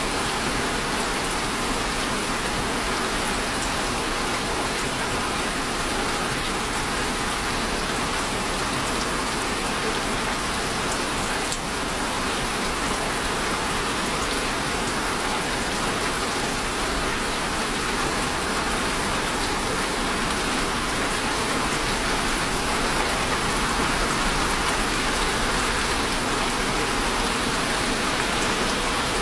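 Steady rain falling, an even hiss of many drops on a surface, holding at one level throughout.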